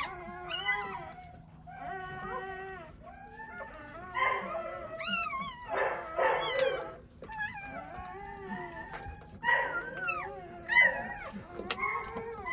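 Newborn Doberman puppies crying: a series of high, wavering squeals and whimpers that rise and fall in pitch, several overlapping around the middle.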